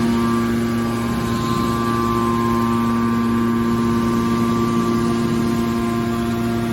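Hydraulic scrap-metal baler's motor and hydraulic pump running with a steady hum.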